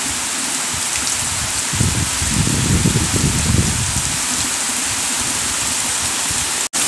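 Rain falling steadily on trees and ground, a dense even hiss. About two seconds in, a low rumble swells for around two seconds, and near the end the sound drops out for an instant.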